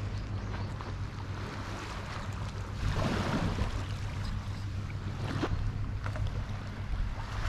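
Seaside water and wind noise: waves washing against the breakwater over a steady low rumble, with one louder wash about three seconds in.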